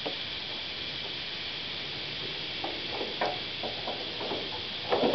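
Light plastic clicks and taps as washer-pump parts are handled against the wiper motor: a scattered few from about two and a half seconds in, and a louder cluster near the end, over a steady hiss.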